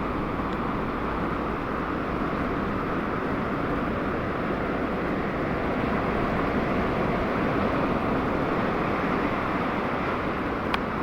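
Steady wash of ocean surf breaking and rushing onto the beach, swelling a little midway, with a single sharp click near the end.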